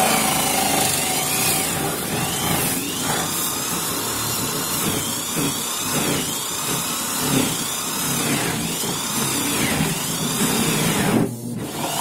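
Drill turning a 6-inch Hole Dozer bi-metal hole saw as it grinds into the plastic wall of an ice chest, with a whine that rises and falls in pitch about once a second. It eases off briefly near the end, then picks up again. The user finds that pressing too hard keeps the saw from cutting.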